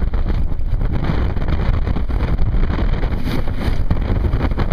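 Strong wind buffeting the microphone on a fast-sailing racing sailboat, with water rushing along the hull beneath it.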